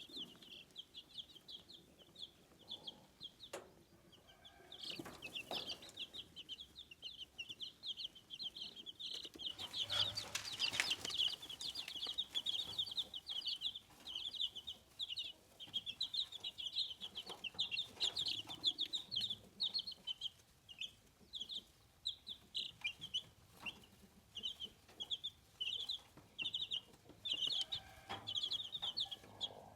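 Bresse chicks peeping, a dense run of short high-pitched chirps from several birds at once, with some rustling about ten seconds in.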